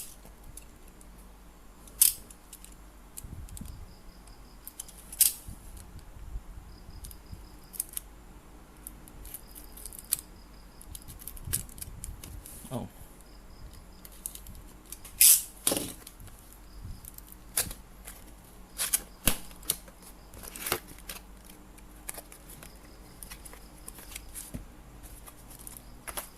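Unboxing a speaker box: a string of irregular sharp clicks and knocks from handling the cardboard box and its packaging, with light rustling in between.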